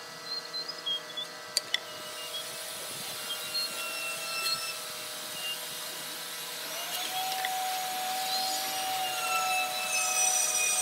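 Steady whine of a woodworking power tool running in the workshop, its pitch shifting about two-thirds of the way through and growing louder toward the end. A few light taps near the start.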